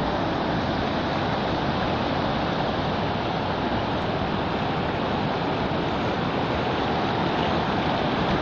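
River floodwater rushing steadily across a submerged road and pouring over its edge in rapids.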